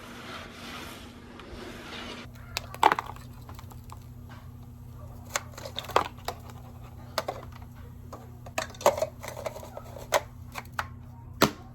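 Scattered light clicks and knocks, like small objects being handled, over a faint steady hum that sets in about two seconds in.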